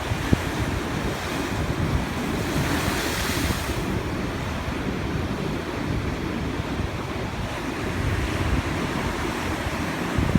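Sea waves breaking and washing on the shore, with wind buffeting the microphone; one wave's wash swells up about three seconds in.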